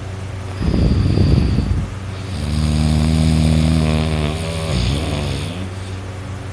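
A person snoring loudly in deep sleep: a rough, rattling snore about half a second in that lasts about a second, then after a short pause a long, droning snore of about three seconds.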